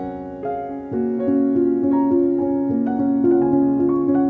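Background piano music: a slow melody of held notes, growing fuller and louder about a second in.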